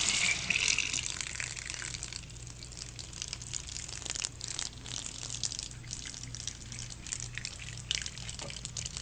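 Water running from a sink faucet in a steady stream, strongest in the first two seconds, with a few brief splashes now and then.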